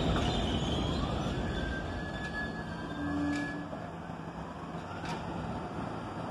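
R68 subway train braking to a stop on an elevated track: rumble of wheels on rail with whining motor and brake tones and a few sharp clicks, getting quieter as it slows.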